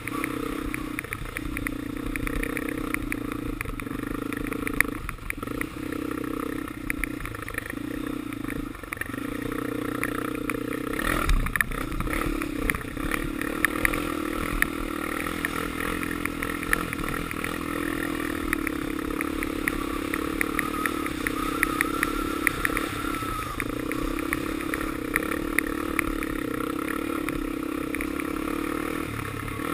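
Honda 400EX's single-cylinder four-stroke engine running as the ATV is ridden, the engine note dropping and picking up again several times as the throttle is eased and reopened, with a thump about eleven seconds in.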